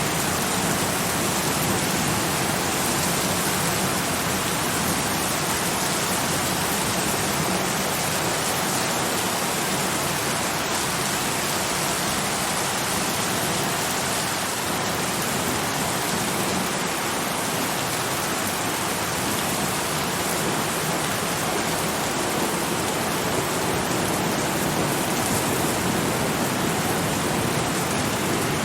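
Steady, heavy rain falling in a dense, even hiss, with no thunder and no single drops standing out.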